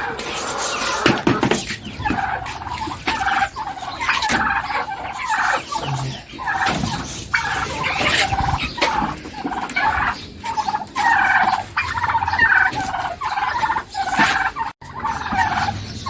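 A group of young domestic ducks calling over one another, a dense run of short repeated calls with brief gaps.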